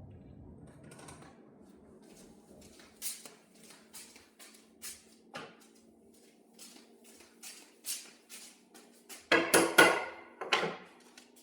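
Workshop handling noises: a string of light clicks and taps, then a louder clatter of knocks near the end, as of wooden parts and tools being handled and set down.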